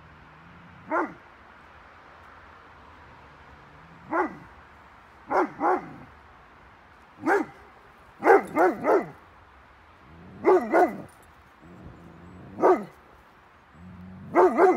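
Curly-coated retriever barking in bouts: about a dozen short barks, some single and some in quick pairs and threes, with pauses of one to two seconds between. It is alarm barking at a person in a white ghost costume.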